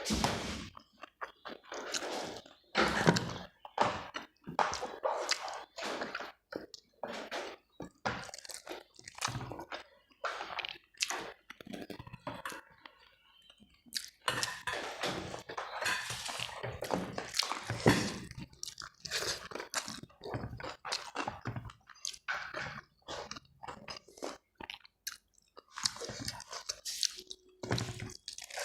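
A person chewing mouthfuls of rice, dal, fried potatoes and cabbage salad close to the microphone, with crunchy bites in irregular runs. The chewing briefly goes quieter about halfway through.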